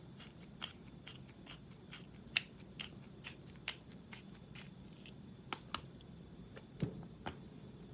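Built-in grinder cap of a coffee spice grinder being twisted by hand, giving faint, irregular clicks and crunches, about one or two a second, as the coffee-spice grounds are cracked.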